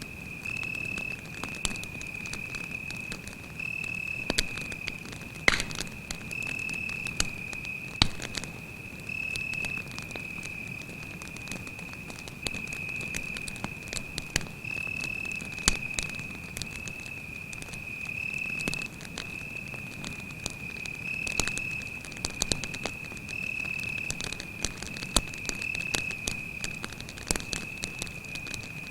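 Campfire crackling with scattered sharp pops, the loudest a few seconds in and about a quarter of the way through, over a cricket's steady high-pitched trill.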